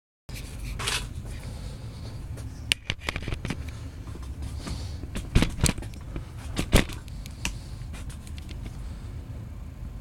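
A few sharp clicks and knocks, a couple of them loud about halfway through, over a low steady hum.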